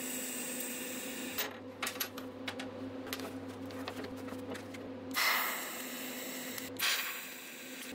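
TIG welding arc hissing over the steady hum of the welder. It gives way to a run of light metallic clicks and knocks as steel plates are set against a magnetic welding square, then the arc is struck again, hisses for about a second and a half and cuts off suddenly.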